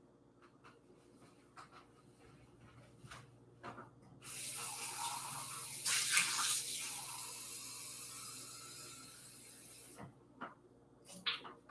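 Water running from a kitchen tap: it starts suddenly about four seconds in, runs for about six seconds while slowly getting quieter, then shuts off. A few light clicks and knocks of handling come before and after it.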